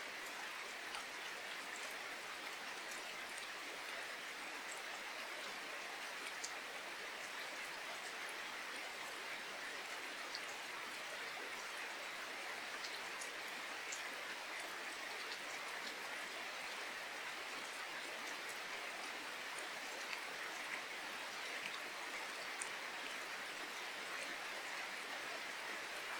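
Steady rain falling: an even, continuous hiss with scattered sharp ticks of individual drops hitting nearby surfaces.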